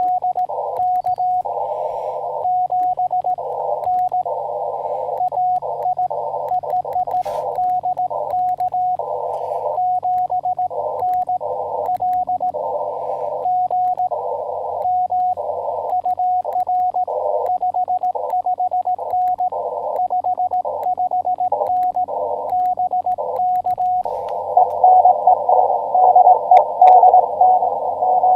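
Morse code (CW) on the 10-meter amateur band from a ham radio transceiver: a single steady beep keyed on and off in dots and dashes, over band hiss narrowed by the receiver's CW filter. Near the end the hiss grows louder.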